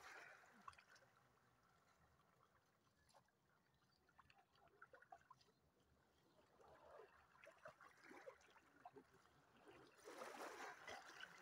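Faint splashing and trickling of shallow seawater scooped and poured by hand, with small waves lapping on rocks. The water sounds rise a little near the end.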